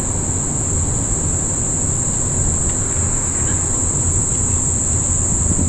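Insects buzzing in a steady, high-pitched chorus, over a constant low rumble.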